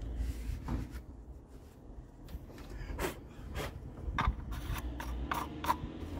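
Paper towel rustling and rubbing as an engine oil dipstick is handled and wiped, with a string of short scrapes and clicks in the second half, over a low steady rumble.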